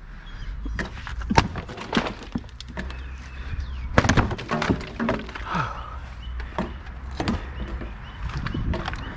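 Irregular knocks and cracks of wooden wall boards being struck and splintered loose during hand demolition, with the loudest blow about four seconds in.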